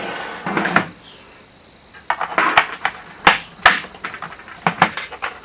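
Hard plastic Playmobil parts being handled and pushed into place: a series of sharp clicks and taps, clustered from about two seconds in, with the loudest pair a little after three seconds.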